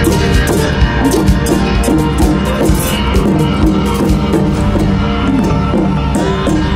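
Music with drums and melodic instruments playing a repeating tune.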